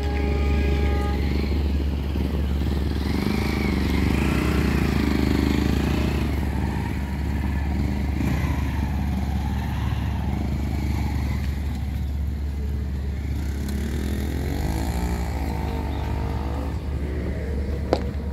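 Motorcycle engine running, over a steady low rumble, with a sharp click near the end.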